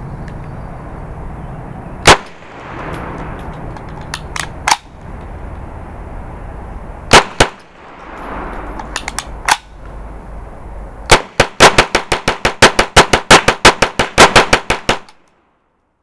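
Uzi firing: a few widely spaced single shots and pairs, then a rapid string of about seven shots a second for some four seconds that cuts off suddenly near the end.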